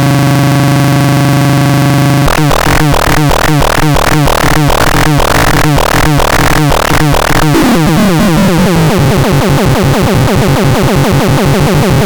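SCRAPTRON model 1C electronic noise synthesizer being demonstrated. It opens with a steady buzzing tone, switches about two seconds in to a series of falling zaps, two or three a second, and from about eight seconds in turns to a fast pulsing over a low drone.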